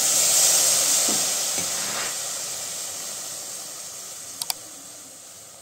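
Water sprinkled into a hot, empty non-stick kadhai (wok) hissing as it flashes to steam, the hiss fading steadily away. Two faint ticks near the end.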